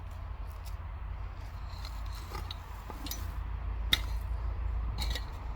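Scraping and short clicks of digging in soil while lifting sweet potatoes, with a sharp tick about four seconds in and another pair about five seconds in, over a steady low rumble.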